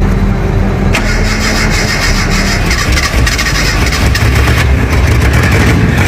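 Toyota Corolla's 4K four-cylinder petrol engine starting up, catching about a second in, then running steadily.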